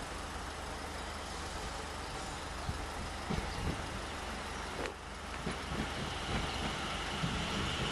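Steady outdoor rumble of idling road traffic and wind, slowly growing louder as an electric multiple-unit train approaches, with a thin high whine creeping in near the end.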